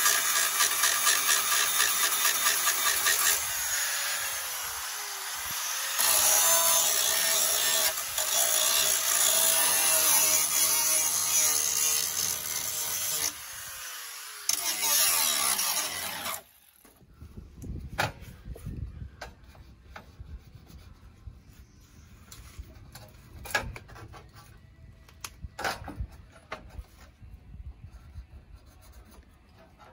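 A handheld power tool working sheet steel for about sixteen seconds, let off twice with its motor running down in pitch, then stopping. After that come scattered light metal knocks and handling sounds.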